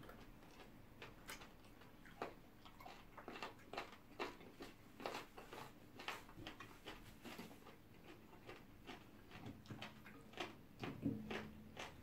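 Quiet eating sounds of two people chewing pounded yam and soup eaten by hand: scattered wet mouth smacks and clicks, with a brief low hum near the end.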